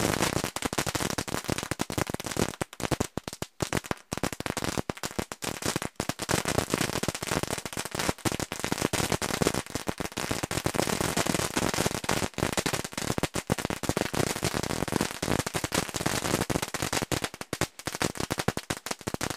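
Fireworks and firecrackers popping and crackling in a rapid, unbroken rattle of bangs.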